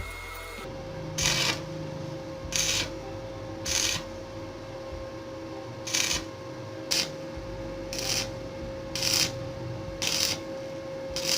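Short rasping tool strokes, about nine of them spaced roughly a second apart, over a steady hum with one clear tone, which set in about a second in.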